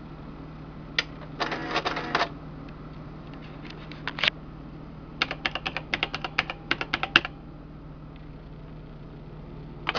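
Burroughs C2000-series electronic printing calculator at work: its keys clicking and its paper-roll printer clattering in short bursts, with a quick run of clicks from about five to seven seconds in. A steady low hum runs underneath.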